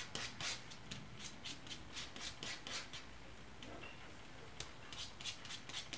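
Metal palette knife scraping and smearing thick acrylic paint on a palette sheet while mixing colours: soft, faint, rhythmic strokes about three a second, pausing for a second or so after about three seconds and then resuming.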